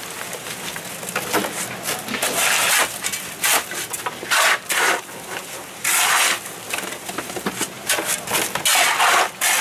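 Shovels scraping and digging into wet, gravelly mud, an irregular series of rough scrapes roughly one a second.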